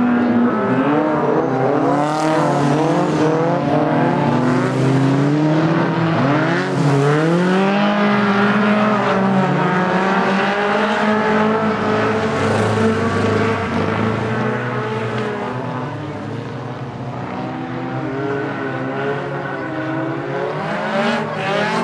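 Several 1660 Modified stockcars racing together on a dirt oval. Their engines overlap, each rising and falling in pitch as the drivers rev through the corners and lift off. The sound drops somewhat about two-thirds of the way through, then builds again near the end.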